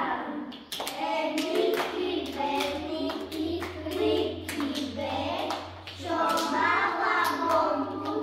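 Children singing a song while clapping hands with partners in a clapping game, about two claps a second.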